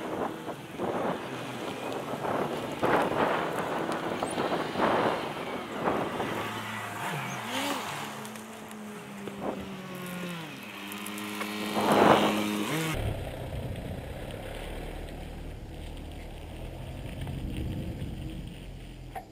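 A vehicle moving slowly along a campsite track, with wind on the microphone and repeated jolts over the rough surface, and an engine whose pitch rises and falls about eight to twelve seconds in. About thirteen seconds in, the sound drops abruptly to a steady low hum.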